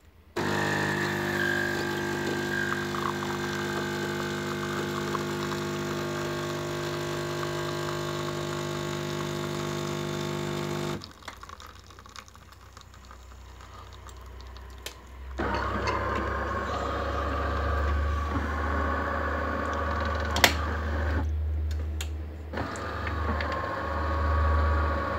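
AEG Caffè Silenzio bean-to-cup espresso machine running a brew cycle. A steady motor hum starts suddenly and runs for about ten seconds, then drops to a quieter stretch while coffee pours into the cup. A lower rumbling whir with a sharp click follows.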